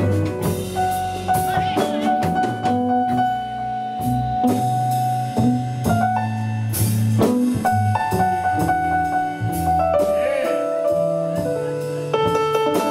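Live blues band playing an instrumental passage, with keyboard notes held over a bass line and a drum kit keeping time.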